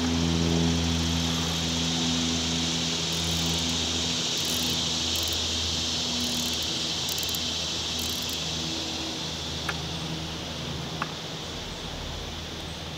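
A steady high-pitched insect chorus over a low, even engine hum that slowly fades toward the end, with two faint clicks about ten and eleven seconds in.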